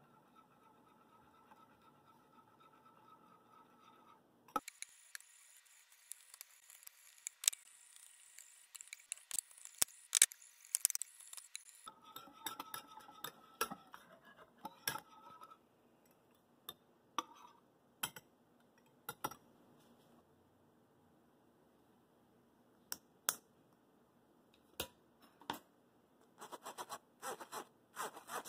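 Wire whisk beating Yorkshire pudding batter in a glass bowl: irregular clicks and scraping of the metal tines against the glass, thinning out to occasional taps. Near the end a spoon scrapes the batter through a metal mesh sieve.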